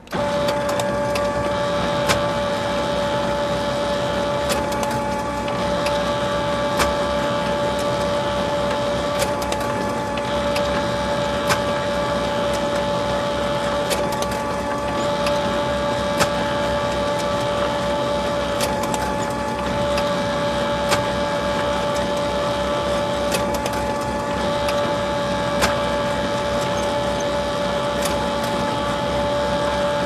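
Photocopier running: a steady mechanical hum with a high whine that starts suddenly, with a sharp click about every two and a half seconds.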